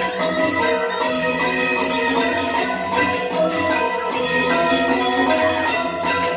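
Traditional Sundanese gamelan-style dance music, with struck mallet metallophones ringing over light jingling percussion.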